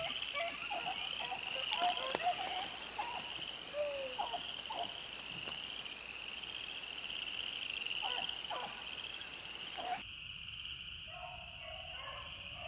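A steady chorus of frogs trilling together in a high, pulsing drone, with scattered short calls sounding lower beneath it, mostly in the first half and again around eight seconds in.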